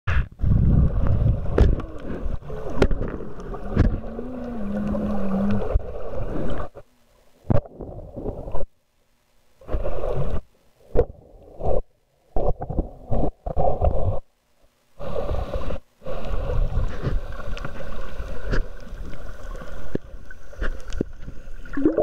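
Muffled underwater rumbling and gurgling of water moving around a submerged camera. It drops out into several near-silent gaps in the middle, and a brief low hum sounds about four seconds in.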